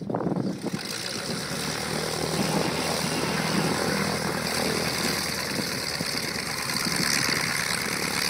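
Light aircraft's piston engine and propeller running, swelling up over the first second and then holding steady.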